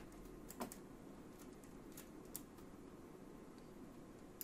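Short, sharp clicks of the Tektronix 2230 oscilloscope's front-panel pushbuttons and controls as it is switched into its digital save mode. The clicks are scattered, with a quick cluster about half a second in and another near the end, over faint room noise.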